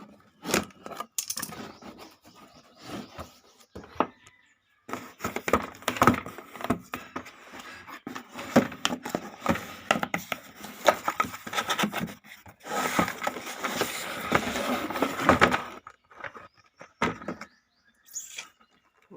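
Keyboard packaging being handled: cardboard and plastic rustling and crinkling with scattered clicks and knocks, and a denser few seconds of rustling a little past the middle.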